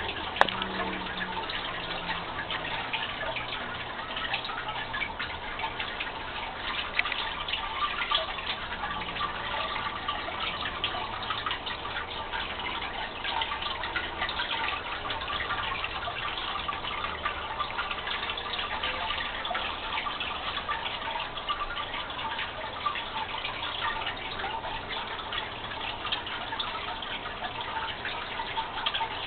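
Metal water-wall fountain running steadily, water trickling down its rusted cold-rolled steel panel and pattering into the rock-filled basin as a dense stream of small drips. One sharp click right at the start.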